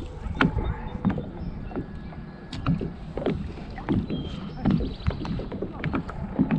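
Irregular soft knocks and water lapping against a plastic fishing kayak's hull, with small clicks of fishing gear being handled.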